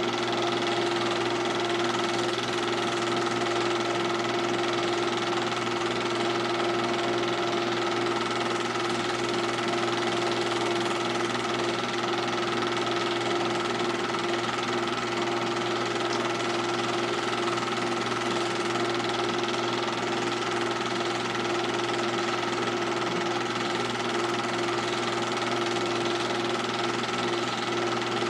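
Film projector running: a steady mechanical whir with a constant whine, unchanging throughout.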